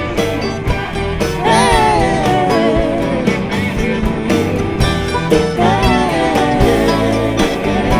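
Background song: a sung melody over a steady beat and guitar.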